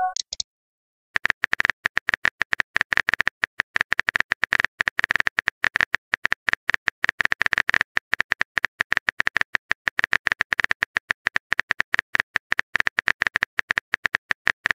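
Phone chat app's keyboard typing sound effect: a rapid stream of short clicks, one for each character typed, starting about a second in. At the very start the end of a message tone fades out.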